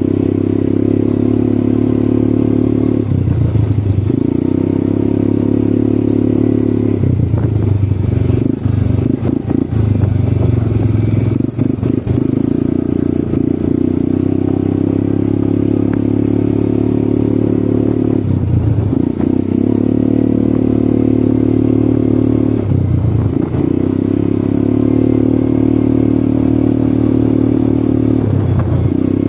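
ATV engine running while riding, its pitch dipping briefly and picking back up several times as the throttle eases and opens again, with a rougher, clattery stretch a third of the way in.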